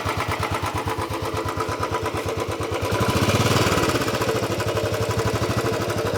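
Royal Enfield Classic 350 BS-IV single-cylinder engine idling with an even, steady thump through its stock silencer, the muted thump of the newer BS-IV models. About three seconds in the revs rise briefly, then settle back to idle.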